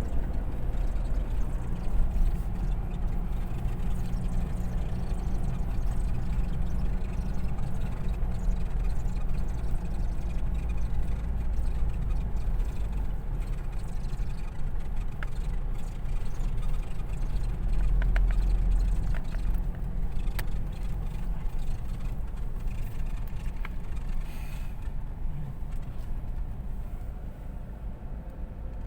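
Steady low rumble of a pickup truck driving, engine and road noise, easing off a little near the end.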